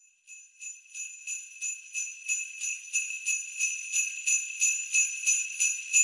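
Sleigh bells shaken to a steady beat, about three shakes a second, growing louder, as the intro of a music track.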